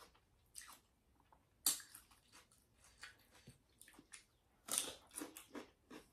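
A person eating close to the microphone: chewing and biting sounds in short scattered bursts, loudest about a second and a half in and again in a cluster near the end.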